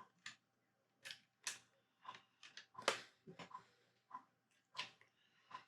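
Small plastic Lego pieces being handled and fitted together, giving faint, sharp clicks and clacks at an irregular pace, about a dozen in all.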